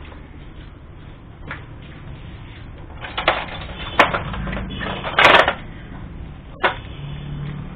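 Scattered sharp metallic clicks and knocks of hands and parts being handled on an old Royal Enfield Bullet's cast-iron cylinder head during dismantling, the loudest a short clattering rattle about five seconds in.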